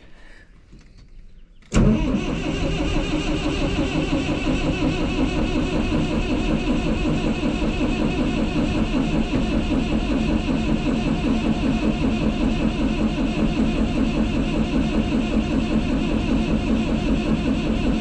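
Detroit Diesel Series 50 engine set going on the starter about two seconds in, then going steadily and loudly, after its fuel line was primed for a crank-no-start problem.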